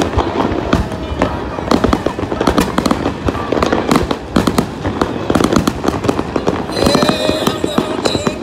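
Aerial fireworks display: a dense, continuous string of bangs and crackles from shells bursting overhead.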